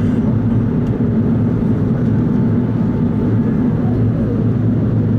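Steady cabin roar of an Airbus A380-841 climbing after takeoff, heard inside the cabin at a window seat over the wing: the drone of its four Rolls-Royce Trent 900 turbofans mixed with rushing air, deep and even with a low hum.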